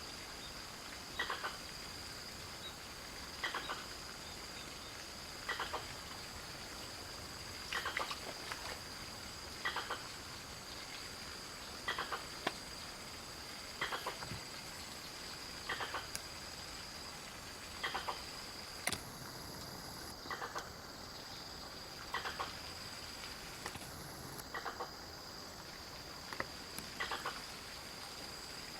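An unidentified animal call, heard as strange, repeating at an even pace of about one short call every two seconds. A faint steady high tone runs underneath.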